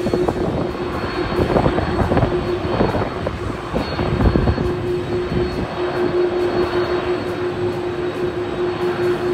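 Jet airliner engines running, a loud steady noise with a constant humming tone, and a rough low rumble that swells up in the first half.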